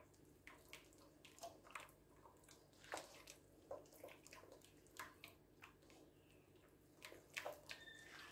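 Faint, irregular wet squelches of a bare hand kneading and squeezing a soft, creamy batter in a glazed clay bowl, breaking up small lumps in the mix.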